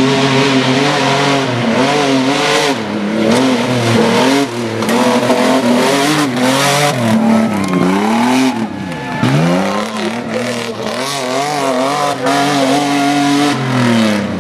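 Pickup truck engine revving hard as it drives off-road, its pitch rising and falling again and again as the throttle is worked on and off. The engine drops to a low pitch about two-thirds of the way through, then picks up again.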